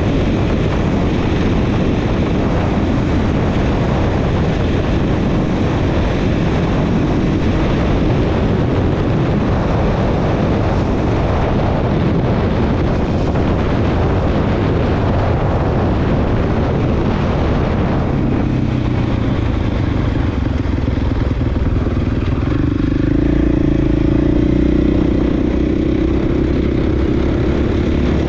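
Dirt bike engine running under way, mixed with a dense rushing noise. After about 18 seconds the rush eases and a steady engine drone with a clear pitch comes through, rising slightly near the end.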